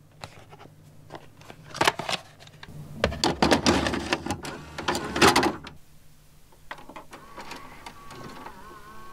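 VHS cassette handled and pushed into a Universum VHS video recorder. The recorder's loading mechanism clatters and clunks as it draws the tape in, then settles into a faint steady motor whine as the tape transport runs.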